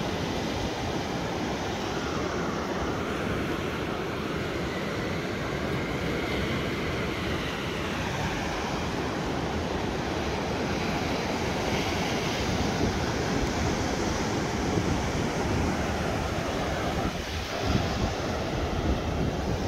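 Steady wind noise on the microphone, over surf washing on the beach.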